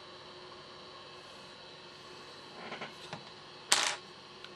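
Steady electrical hum from the bench equipment, with a few light taps and then a brief clatter about three-quarters of the way through as a tool is set down on the work surface.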